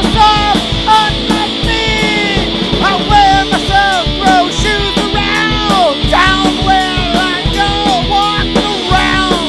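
Punk rock song: drums keeping a steady beat under distorted guitar, with a melodic line bending up and down over it.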